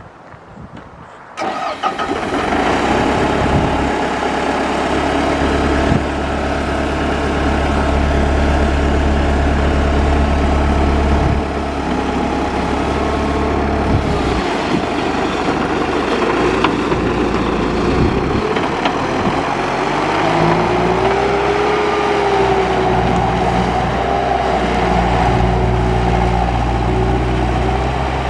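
Bobcat 864 skid steer's diesel engine starting about a second and a half in, then running steadily, its pitch and level shifting several times.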